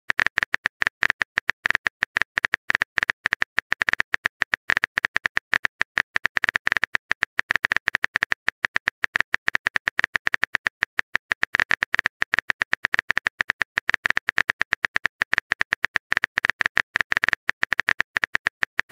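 Keyboard typing sound effect of a texting-story chat app: rapid, steady clicks, many a second, marking a message being typed.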